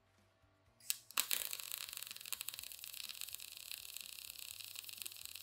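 MIG welding arc from a 120-volt Titanium MIG welder, running with shielding gas on a small piece of thin steel. It strikes about a second in with a brief sputter, then settles into a steady, fast crackling sizzle. The machine is set for thin metal and is not struggling.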